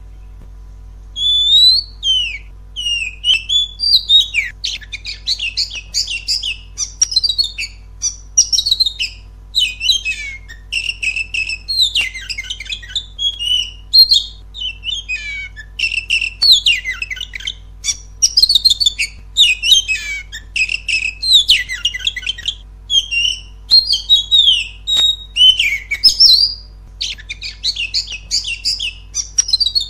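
Oriental magpie-robin (kacer) singing a long, unbroken song. It starts about a second in and runs as a rapid string of varied high whistles, gliding up and down, mixed with harsher notes.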